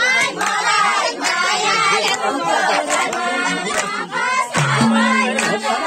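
Nepali folk song with singing over a regular percussive beat, and people clapping along.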